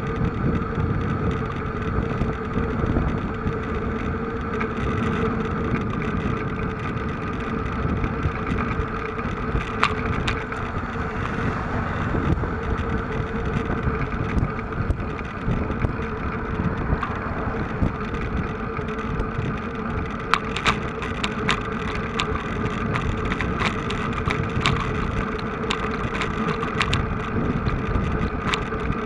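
A small engine running steadily, its hum holding one pitch, with wind rumbling on the microphone. A scatter of sharp ticks comes between about twenty and twenty-seven seconds in.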